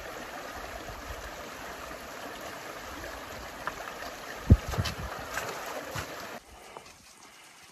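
Shallow glacial meltwater stream running over gravel, a steady rush of water. From about halfway through come several thumps and splashes as boots and trekking poles strike the rocks and water, the first one the loudest. Near the end the water noise drops suddenly to a much quieter background.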